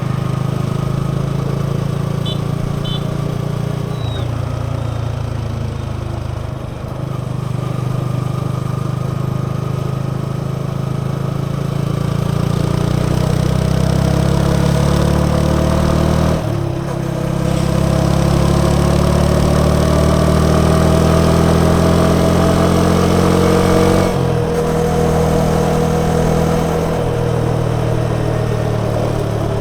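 Yamaha XSR 155's single-cylinder 155 cc four-stroke engine and exhaust under way. The pitch climbs steadily as the bike accelerates and drops briefly at gear changes, about halfway through and again near the end.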